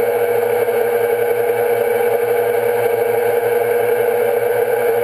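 Quadcopter drone's electric motors and propellers whirring steadily at cruise, heard close up from the drone's own onboard camera, with a strong steady hum.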